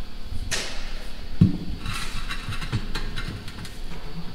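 Steel tire iron levering a semi-trailer tire's bead over the rim by hand: scraping and creaking with a few dull knocks, the clearest about one and a half seconds in.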